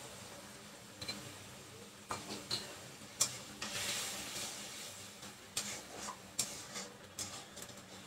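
Steel spatula stirring and scraping onion paste frying in a steel kadai, with scattered clinks of metal on the pan and a brief sizzle a little after the middle.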